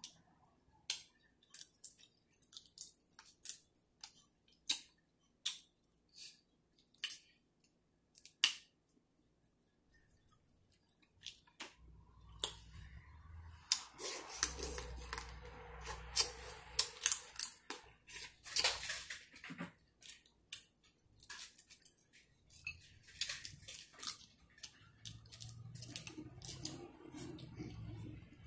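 Boiled crab leg shells being cracked and snapped apart by hand: a string of sharp, separate cracks and clicks. From about twelve seconds in, close-up sucking and chewing sounds mixed with more shell cracks.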